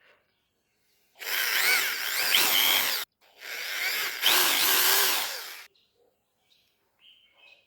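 Small power tool running in two bursts of about two seconds each, the first starting about a second in, its whine wavering up and down in pitch as it works the material.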